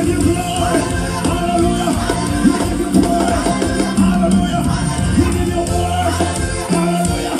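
Live praise band playing an upbeat rock praise medley, with a lead singer and backing vocalists singing over drums and amplified instruments.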